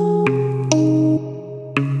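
Background music: held keyboard-like chords, with a new chord struck twice.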